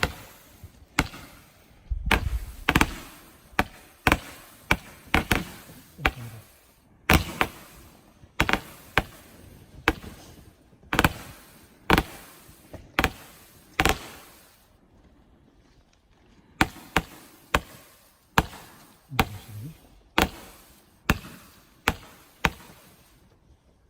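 A Vulcan 'Color Pearl' consumer fireworks cake firing single sharp shots in a row, about one a second, with a pause of about two seconds midway. The shots stop shortly before the end.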